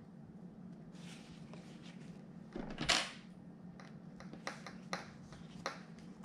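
Hands handling fabric and vegan-leather pieces on a tabletop: a soft rustle about three seconds in, then a few light clicks and taps, over a steady low hum.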